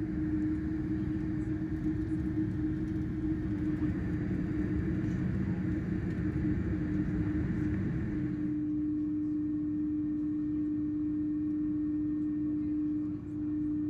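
Airbus A310 cabin noise while taxiing: a steady low rumble with a constant mid-pitched hum from the idling jet engines and cabin air. A higher hiss drops away about eight seconds in.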